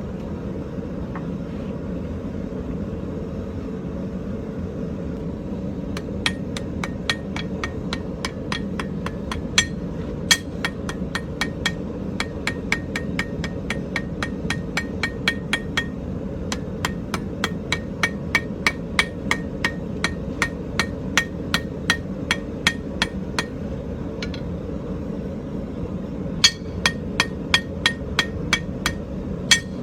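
A hand hammer striking hot iron on an anvil, forging out the second tine of a barbecue fork: a steady run of ringing blows, about two to three a second, starting some six seconds in, with brief pauses near the middle and towards the end. A steady low rumble runs underneath throughout.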